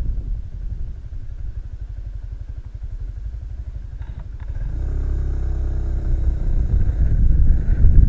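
The motorcycle's own engine running low and steady with a fine pulsing beat, then, after a couple of light clicks, revving up and getting louder as the bike accelerates about halfway through.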